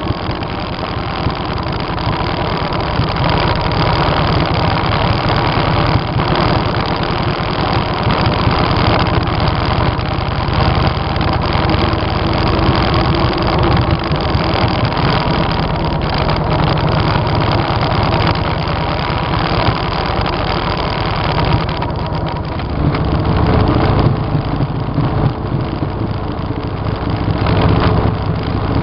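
Motorcycle engine running steadily under way, mixed with a constant rush of wind noise.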